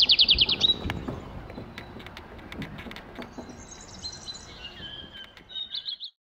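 A bird calling: a rapid trill of high notes during the first second, then fainter chirps, and a few more quick notes near the end before the sound cuts off suddenly.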